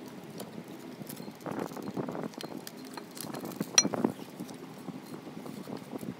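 Brembo front brake caliper being worked off the rotor and handled: a run of light metal knocks and scrapes, with one sharp ringing metallic clink a little under four seconds in.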